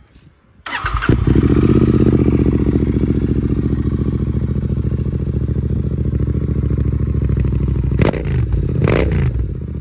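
Royal Enfield Interceptor 650's 648 cc parallel-twin engine, fitted with an AEW TE101 aluminium aftermarket exhaust, starts about a second in and settles into a steady idle, then gets two quick throttle blips near the end.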